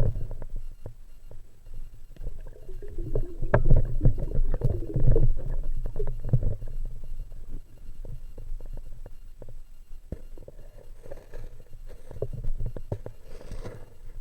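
Muffled underwater sound picked up by a camera in a waterproof housing: a low rumble with many small knocks and clicks and some water movement, louder about three to six seconds in.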